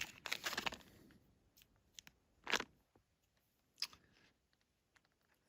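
Magnetic reusable cable ties being handled: a brief crinkly rustle, then a few sharp separate clicks as the magnetic ends snap together.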